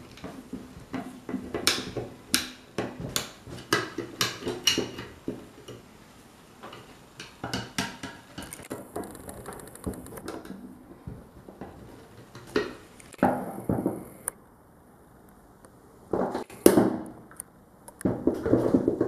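A hex key and wrench working a bolt on a steel fan-stand bracket: a quick run of sharp metallic clicks and clinks over the first five seconds, then scattered knocks, with a few louder scraping handling noises near the end.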